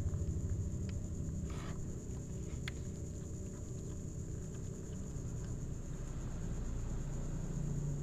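A kitten chewing fried fish close to the microphone, with a few short sharp clicks over a steady low hum.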